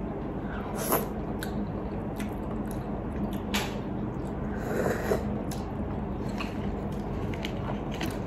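Quiet eating sounds from a person eating crab: soft chewing and sucking at the crab shell, with scattered faint clicks, over a faint steady low hum.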